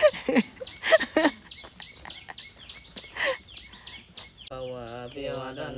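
People laughing, then about four and a half seconds in Buddhist monks begin a steady chant in unison. Behind it a bird repeats a short, high, falling chirp about three times a second.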